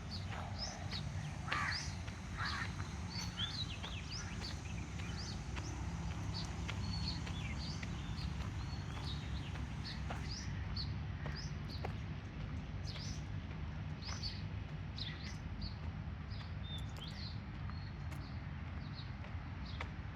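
Many small birds chirping and calling in quick, overlapping short notes, with a few louder calls about two seconds in, over a steady low rumble.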